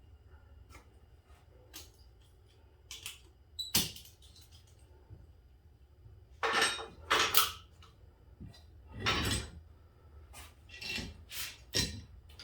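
Tools and metal parts being handled at a workbench: scattered clinks, knocks and rustles, a dozen or so separate short sounds, the loudest about four, seven and nine seconds in.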